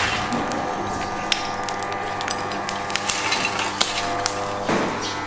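Whole pigs roasting on spits over glowing charcoal: scattered sharp crackles and clicks over a steady hum.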